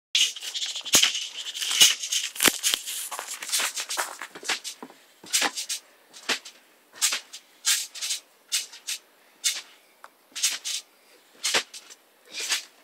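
Trampoline being bounced on: sharp thumps and spring rattles with each landing and take-off, about one or two a second at irregular spacing, a few of them deep and heavy. A steady hiss runs under the first few seconds.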